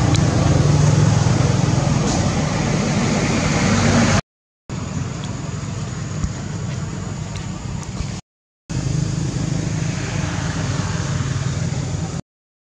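A motor vehicle's engine running steadily with a low hum, over a hiss of road noise. The sound cuts out to dead silence twice for about half a second.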